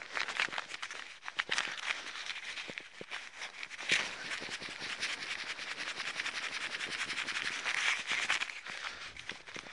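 Air-activated chemical heating pad (a Teploid warmer packet) rustling and crackling as it is kneaded and rubbed between the hands. It is worked to let air in and start the chemical reaction that heats it. The rustle swells about four seconds in and again near eight seconds.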